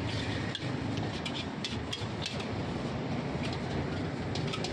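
Long-handled metal ladle scraping and clinking against a large steel wok as fried rice is tossed, over a steady low rumble.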